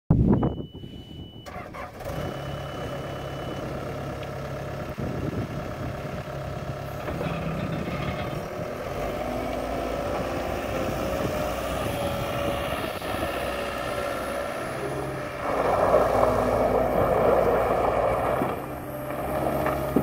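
Cat 262C Series 2 skid steer loader's diesel engine running as the machine drives on dirt, getting louder for about three seconds near the end. A steady high beep sounds twice in the first few seconds.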